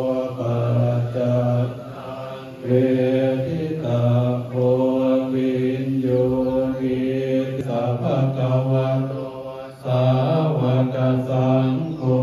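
Buddhist monks chanting a prayer together in unison, in low steady voices, in long phrases with brief pauses for breath.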